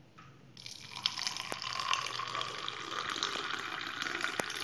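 Frothy hot milk coffee poured in a thin stream from a stainless steel jug into a glass tumbler. The pour starts about half a second in and runs steadily, with two sharp clicks along the way.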